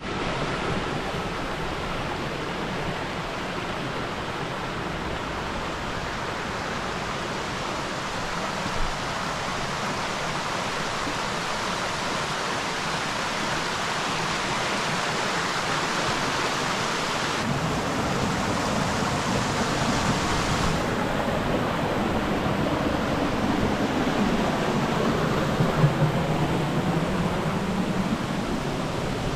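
Steady rush of falling or fast-flowing water, a waterfall or rocky stream, growing gradually louder.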